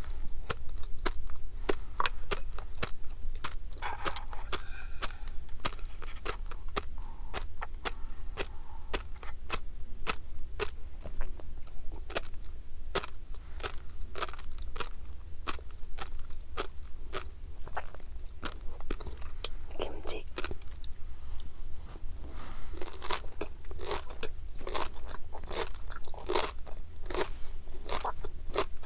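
Close-miked chewing of tobiko (flying fish roe): a dense, irregular run of small crisp pops and crunches as the eggs burst between the teeth.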